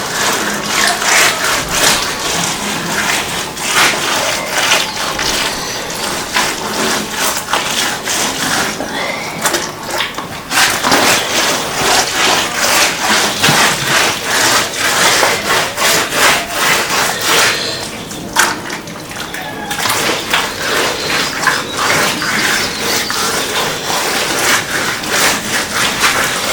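Wet mud plaster being smeared and rubbed onto a house wall: a busy run of short scraping, rubbing strokes, with two brief lulls.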